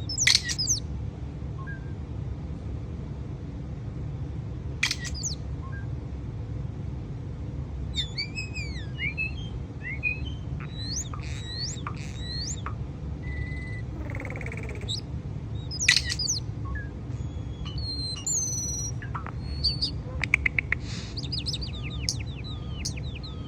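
A bird calling in scattered sharp chirps and short squawks with quick pitch glides, ending with a run of rapid chirps, over a steady low hum.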